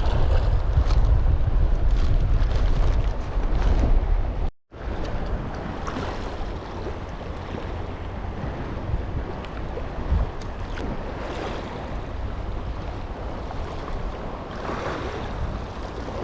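Wind buffeting the microphone over the wash of sea water, a heavy low rumble for the first four seconds. It cuts off abruptly, then continues as a lighter, steady hiss of wind and waves.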